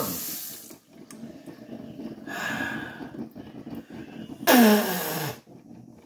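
Kitchen faucet water running into a stainless-steel sink, shut off about a second in. Near the end comes a loud, breathy vocal sound that falls in pitch, like a sigh.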